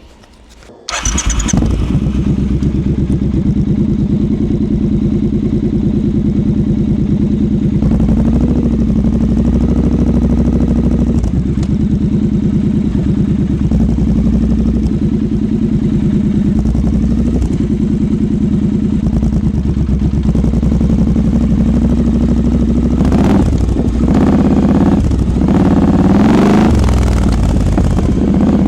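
Triumph Scrambler 1200's parallel-twin engine starting about a second in, then idling steadily, with a few short revs in the second half.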